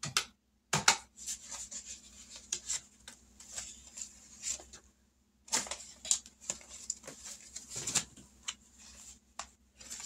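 Paper envelopes and cash being handled, rustling and crinkling in irregular short bursts.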